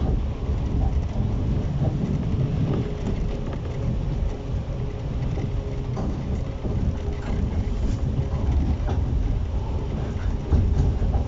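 JR East 115 series electric train standing at a station platform: a steady low rumble with a faint constant hum from its onboard equipment.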